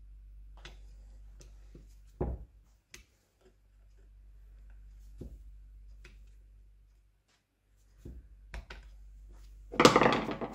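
Sparse light clicks and taps of metal parts and tools being handled during gearbox assembly, over a low steady hum, with a louder burst of sound near the end.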